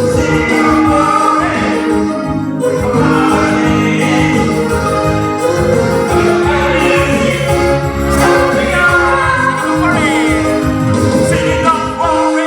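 Live band music with keyboard and singing voices, closing on long held notes that stop near the end.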